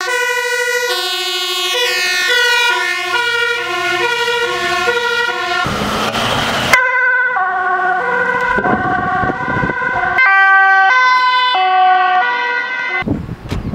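Two-tone sirens of emergency vehicles, a fire engine, an ambulance and a police car, alternating between a high and a low note, with two sirens overlapping near the start. A short burst of rushing noise breaks in about six seconds in, and near the end the siren gives way to wind noise.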